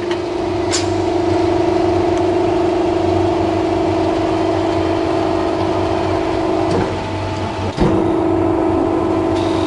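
Hole-punching machine for water heater tanks running with a steady, loud mechanical hum. There is a sharp click under a second in and a short knock about eight seconds in, when the hum briefly dips.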